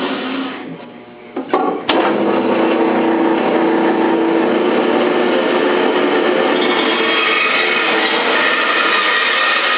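Davis & Wells 20-inch bandsaw running. Its sound drops away briefly near the start, then two sharp knocks come about a second and a half and two seconds in. After that the blade cuts wood with a loud, steady noise.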